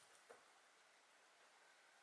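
Near silence: faint room tone, with one short, faint click about a third of a second in.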